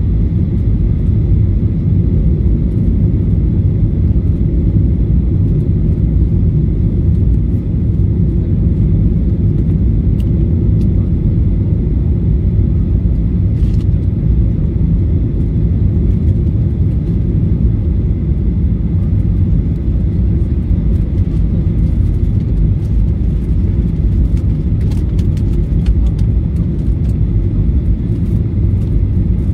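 Airliner cabin noise: the steady low rumble of the jet engines and airflow heard from inside the passenger cabin.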